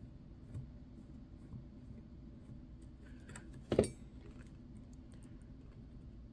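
Small metal watch-repair tools working on a watch: faint scattered clicks and scrapes, with one sharp metallic clink a little under four seconds in.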